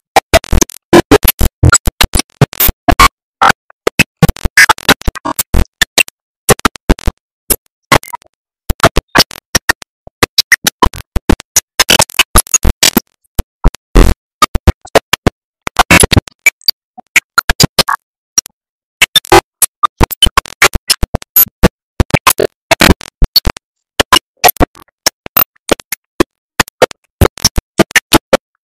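Garbled, stuttering audio: dense bursts of full-range crackle chopped by frequent short dropouts to silence, heard as scratchy, electronic-sounding music with no clear speech or tune.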